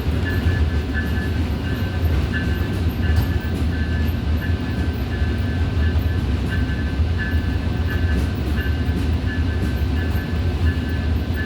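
Tri-Rail commuter train heard from on board: a steady low rumble of the moving train, with a high thin tone that keeps breaking off and coming back.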